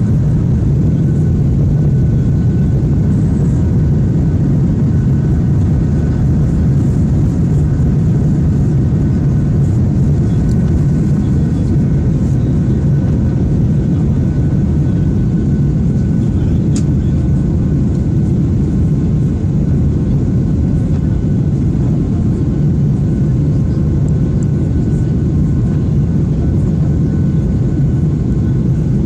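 Steady cabin noise of a Boeing 737-800 climbing after takeoff, heard from a window seat by the wing: a loud, even low rumble of its CFM56-7B turbofan engines and the airflow, with faint steady tones above it.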